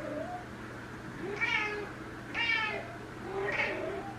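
Female Ragdoll cat in heat calling: a short rising meow, then three drawn-out meows about a second apart.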